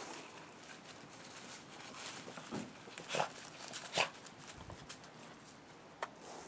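Rabbit nibbling a green leaf held out by hand: a few scattered soft crunches and leaf rustles.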